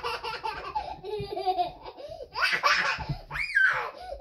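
Young child laughing in short bursts, with a high-pitched squeal about three and a half seconds in.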